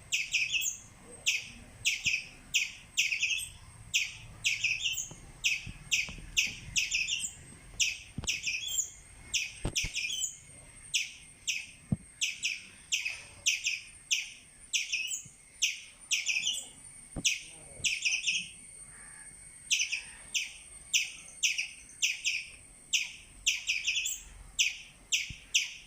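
Squirrel giving a long run of sharp, high chirps, about two a second, with a short pause about two thirds of the way through.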